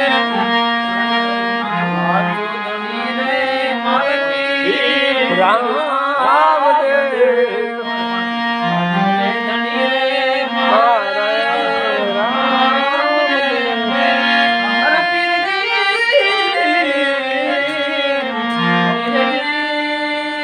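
Harmonium playing a devotional bhajan melody in steady held notes, with a voice singing long, sliding, ornamented phrases over it.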